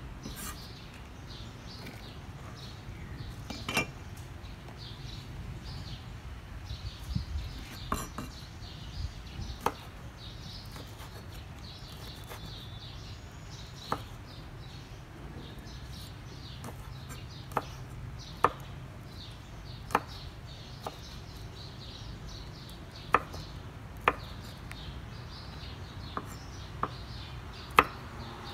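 A cleaver chopping on a round wooden chopping board: sharp single knocks every second or two, louder and more frequent in the second half, over a steady low background rumble.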